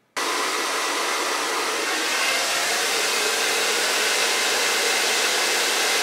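Rusk Speed Freak hair dryer with its concentrator nozzle fitted, blowing hair dry. It comes on abruptly just after the start, then runs as a steady rush of air with a faint whine in it.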